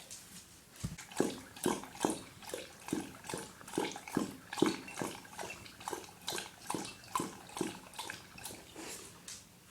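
A dog lapping water from a bowl in a steady rhythm of about two laps a second, starting about a second in and growing fainter near the end.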